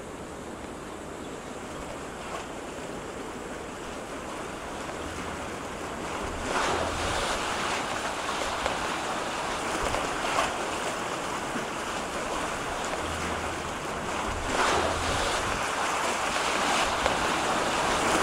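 Sea waves washing ashore, a steady rushing that swells now and then every few seconds, fading up slowly.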